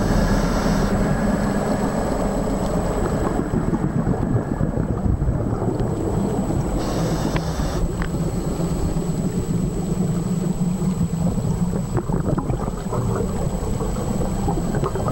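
Underwater ambience picked up by a dive camera: a steady low rumble of moving water, with two short hissing rushes of scuba regulator exhaust bubbles, one at the start and one about seven seconds in.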